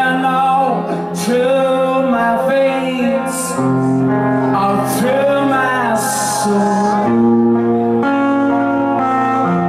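Live blues-rock band playing: a man singing lead over electric guitars, one a Gibson Les Paul, and drums with cymbal crashes.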